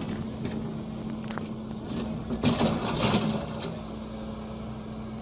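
Excavator's diesel engine running steadily, with scattered clicks and knocks, and a louder rough burst of noise lasting about a second near the middle.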